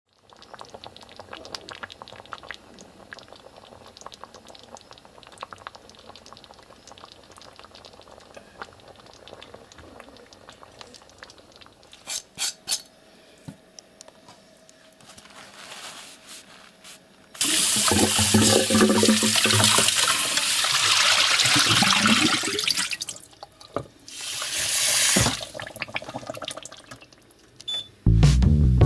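Water pouring into a stainless steel pressure cooker pot with pork hocks in it, for about five seconds, then a second shorter pour. Before that there are faint clicks and clatter of handling in the kitchen, and music starts right at the end.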